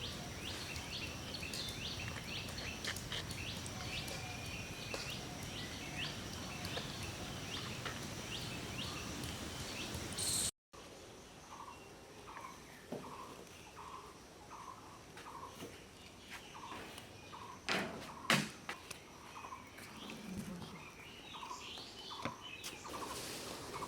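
Birds chirping over a steady high whine and background noise. After a sudden cut about halfway through, a bird repeats a short call about twice a second, with a few sharp clicks in between.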